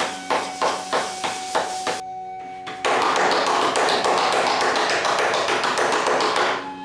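Sharp taps about three a second as vegetables are cut on a stand-mounted curved blade (boti). After a brief pause comes a dense, crisp rustling as a handful of fresh coriander is drawn across the blade and sliced. Faint instrumental music plays underneath.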